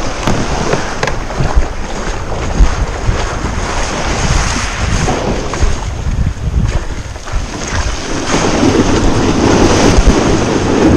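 Small waves breaking and washing up a shingle beach, with gusty wind rumbling on the microphone. The wash swells near the end.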